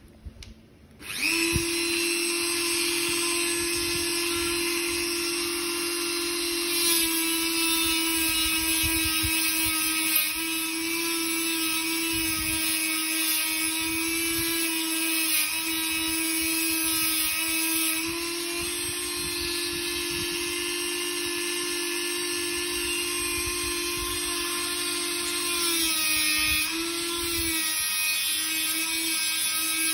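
Dremel rotary tool starting up about a second in and running steadily with a high whine, its brush wheel scrubbing rust off the steel jimps of a straight razor. The pitch dips briefly near the end as the wheel is pressed harder against the blade.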